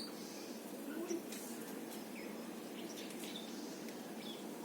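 A few faint, short bird chirps scattered over a steady background hiss.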